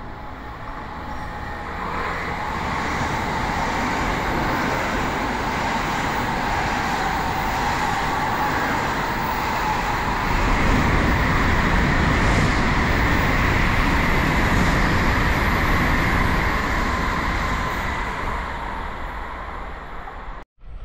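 N700-series Tokaido Shinkansen train passing through the station at high speed without stopping: a rushing rumble of wheels and air that builds over the first few seconds, is loudest in the middle as the cars go by, and fades away near the end before cutting off abruptly.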